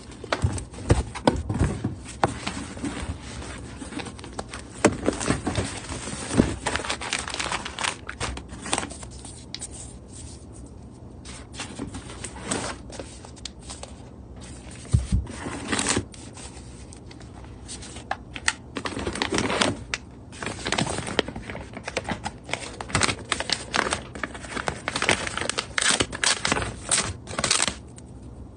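Cardboard box and paper packaging sleeves handled by hands while unpacking: irregular rustling, crinkling and scraping with small knocks, thinning to a quieter spell about ten seconds in.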